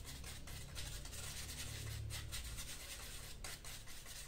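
Paintbrush swirled and rubbed in a small paint tray, mixing clear lightener with a few drops of saline solution to dilute it: soft, irregular brushing scratches over a low steady hum.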